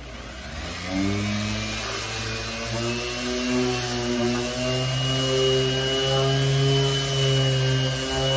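Bosch random orbital sander starting up and running on a sheet of 18 mm marine plywood. Its motor winds up over the first second, then holds a steady hum with a thin high whine as the pad works over the board.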